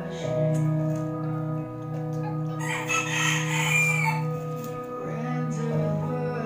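Background music with sustained notes; about three seconds in, a loud crowing call, like a rooster's, rises over it for a little over a second.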